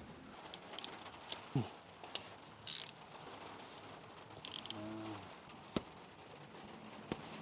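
Scattered metal clicks and knocks of hand tools working on a 16v cylinder head as its end caps are removed. A short scrape comes about three seconds in and a brief low hum near five seconds.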